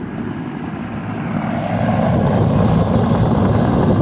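Outdoor unit of a 2005 Nordyne heat pump running in cooling mode: a steady whoosh of the condenser fan over a low hum, growing louder about a second and a half in.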